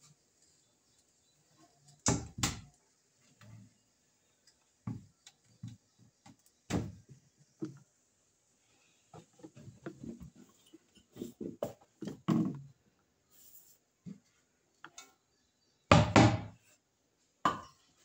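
Irregular knocks and thuds of kitchen items being handled, with a tight cluster of smaller clatters in the middle and the loudest thuds about two seconds in and near the end.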